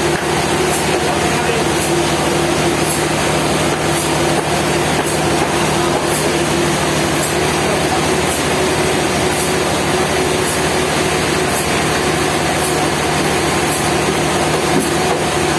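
Sawmill machinery running steadily, a constant motor hum with a faint high tick repeating about once a second.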